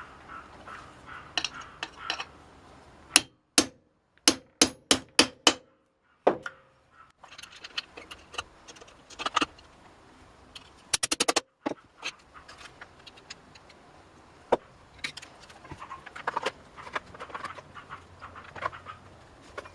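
Hand tools and small metal chainsaw parts being handled during reassembly: scattered clinks and sharp knocks. There is a run of about seven loud knocks a few seconds in, and a quick rattle of clicks near the middle.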